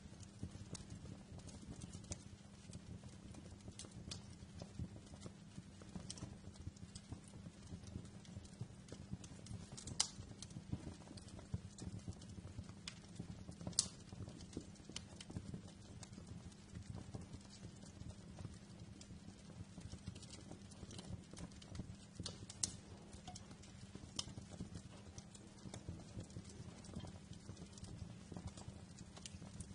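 Wood fire crackling in a fireplace: irregular sharp pops and snaps over a low steady rumble, with two louder pops about ten and fourteen seconds in.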